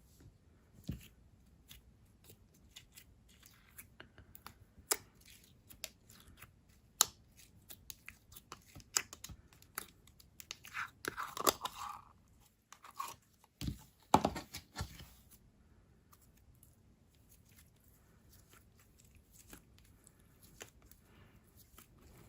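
Coated jelly slime handled by hand: stretched, poked and squished, giving scattered sticky clicks and tearing crackles. There is a busier stretch of louder squelching and crackling around the middle.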